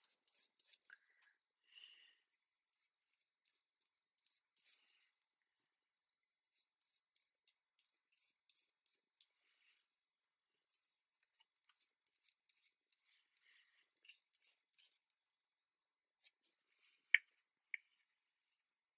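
Faint, scratchy brushing of a flat paintbrush spreading white glue over a fabric circle, with scattered small clicks and taps; the sharpest click comes near the end.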